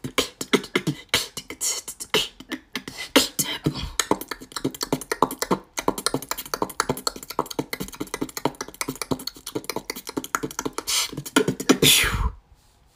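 A girl's vocal beatbox: a fast, dense run of sharp mouth clicks and snare-like hits mixed with short hummed tones. It ends with a longer, louder sustained sound about twelve seconds in.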